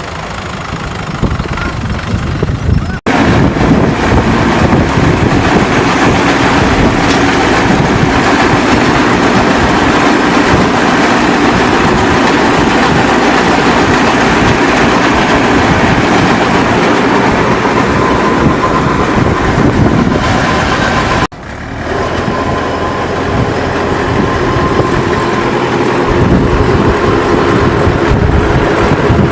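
A mini round hay baler and the tractor driving it, running steadily with loud machinery noise. The sound breaks off abruptly for an instant twice, about 3 seconds and about 21 seconds in.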